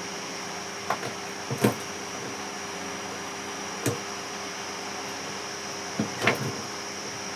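Short knocks and taps of hand tools on a burnt ceiling fan's motor while its coil is taken out, about five of them at uneven intervals, over a steady hum with a high whine.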